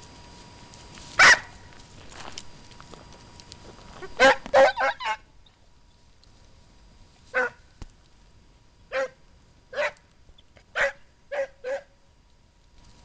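Scent hound baying in short barks: one about a second in, a quick run of four around four seconds in, then six more spaced about a second apart. The hound is giving tongue while working a hare's scent.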